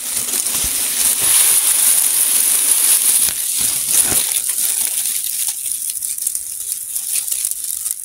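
Dry grass and straw of a munia's woven nest rustling and crackling as fingers part it, close to the microphone. It is busiest in the first few seconds and then settles into lighter rustles, over a steady high hiss.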